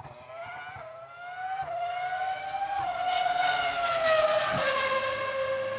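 Racing car engine accelerating hard through several quick upshifts. The pitch climbs and drops back with each shift, then falls away smoothly as the car passes and settles into a steady note near the end.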